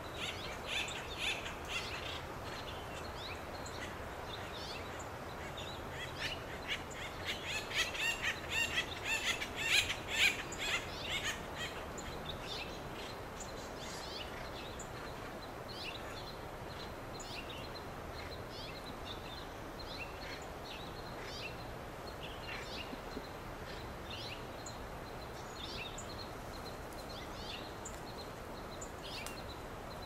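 Acorn woodpeckers calling: a short run of calls right at the start, then a loud, rapid series of raucous calls from about six to twelve seconds in. After that, scattered short, faint calls over steady background noise.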